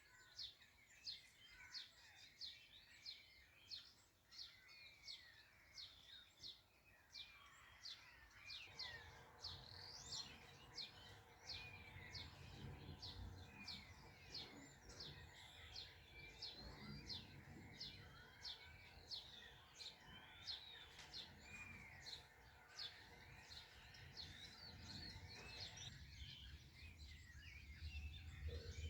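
Several songbirds singing faintly: rapid high chirps repeating about twice a second over other whistled, sliding calls. From about nine seconds in until a few seconds before the end, a low steady mechanical hum runs underneath.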